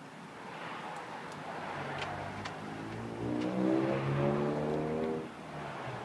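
Zip Dee Relax 12-volt power awning motor retracting the awning: a steady, humming motor whine with a few clicks that builds and then stops about five seconds in, as the awning closes fully against the trailer.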